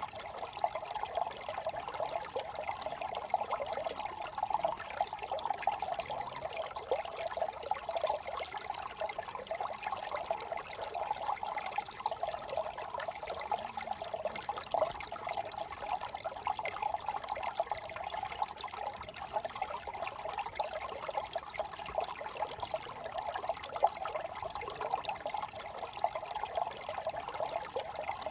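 Small brook trickling steadily, a continuous babble of running water.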